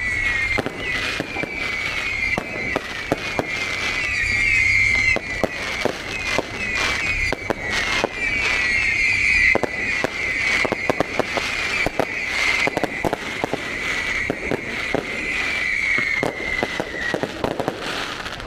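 Fireworks going off in quick succession: many sharp bangs and crackles, with a high, repeatedly falling whistle running through them that stops shortly before the end.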